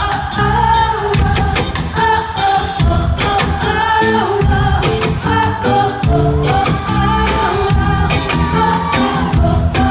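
Live rock band playing: a woman belting the lead vocal over electric guitar, with steady drum hits throughout.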